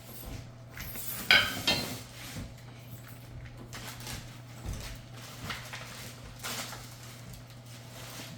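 Handling noises as boxed mower parts and packaging are moved about: a sharp clatter of hard pieces knocking together about a second in, then scattered lighter knocks and rustles over a steady low hum.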